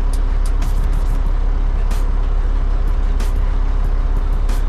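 Concrete mixer truck's diesel engine running steadily with a deep, even rumble, and a few scattered sharp clicks over it.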